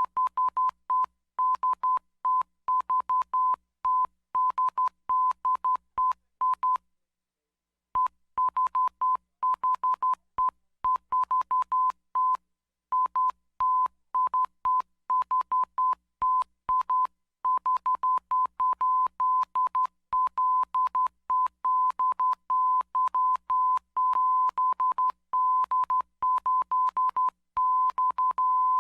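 Morse code sent as a single steady-pitched beep tone keyed on and off in short dots and longer dashes, each beep starting with a faint click. The sending stops for about a second some seven seconds in, then carries on.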